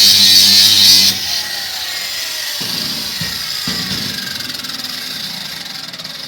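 Cordless 20 V angle grinder with a grinding disc grinding down a weld on angle iron. About a second in it is switched off and the disc spins down with a falling whine that fades out. Two knocks come during the run-down.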